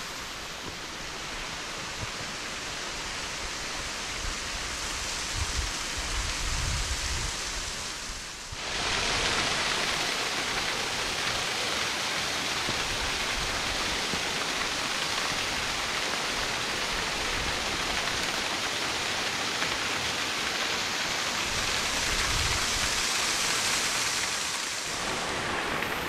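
Steady rushing hiss of falling water from a waterfall about 20 feet high. About eight and a half seconds in it suddenly becomes louder and brighter and stays that way.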